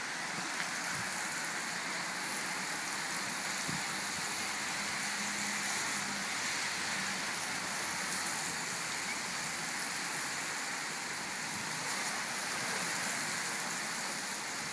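Steady hiss of rain together with bicycle tyres on the wet road as a stream of cyclists rides past.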